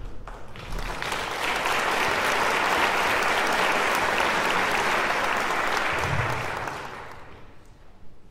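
Audience applauding, building about a second in, holding steady, then dying away near the end.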